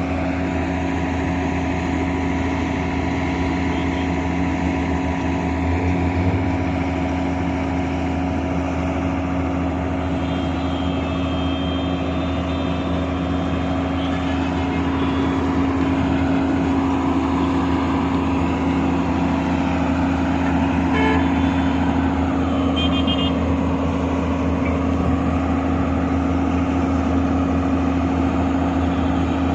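Excavator's diesel engine running steadily under work, with a few short high beeps about two-thirds of the way through.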